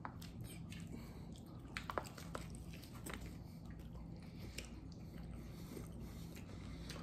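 Faint sounds of a person biting and chewing a day-old hard-shell taco whose shell has gone soft, with a few small scattered crunches.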